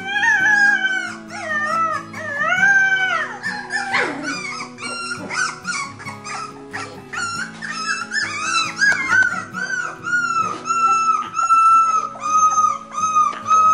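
Several young beagle puppies howling together in high, wavering howls that rise and fall in pitch, turning to rapid short yelping howls near the end. Background music with steady low notes runs underneath.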